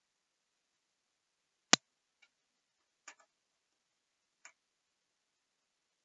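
Handling knocks of small wood pieces and a tape measure being set down on a benchtop table saw's metal top: one sharp, loud knock nearly two seconds in, then three fainter clicks spaced about a second apart.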